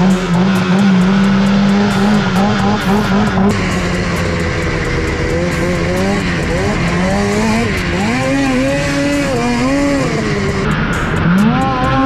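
Snowmobile engine running at a steady pitch, then revving up and down again and again as the throttle is worked through deep snow.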